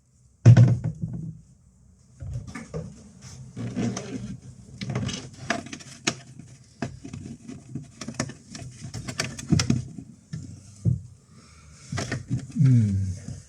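Irregular knocks, clicks and rustles of hands working electrical wires and conduit into place, with a loud knock about half a second in.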